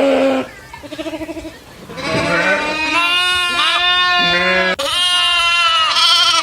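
Goats bleating loudly: a call cut off just after the start, a short trembling bleat about a second in, then a long run of wavering bleats from about two seconds on.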